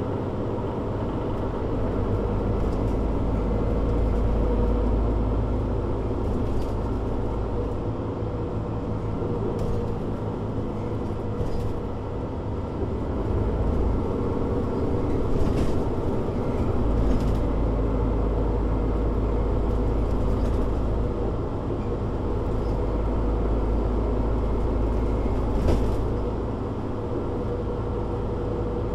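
Mercedes-Benz Citaro C2 G articulated bus under way, its engine droning with a low rumble that swells and eases as it drives. A few short clicks and rattles come through along the way.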